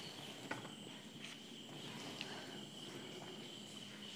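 Faint room tone: a steady high-pitched whine over a low hum, with a few soft ticks about half a second, a second and a quarter, and two seconds in.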